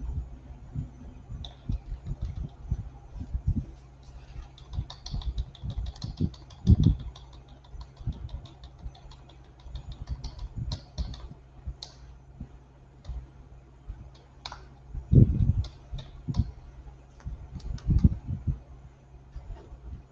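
Typing and clicking on a computer keyboard and mouse, in irregular short runs of clicks, with a couple of heavier thumps about seven seconds in and again about fifteen seconds in.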